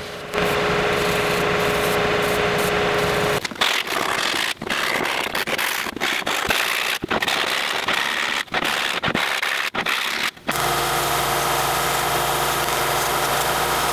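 Power sanders running as wood is sanded to shape, in short edited clips: a spindle sander with a steady hum for about three seconds, then choppy sanding noise broken by several abrupt cuts, then a small benchtop belt-and-disc sander running steadily from about ten seconds in.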